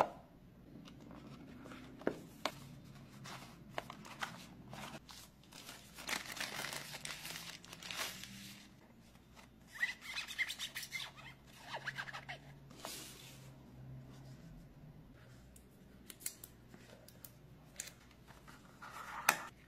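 Hands unboxing a phone: the cardboard box lid and inner tray sliding and rubbing, and a clear plastic phone case and plastic film being handled, giving rustling and scraping with scattered clicks and taps.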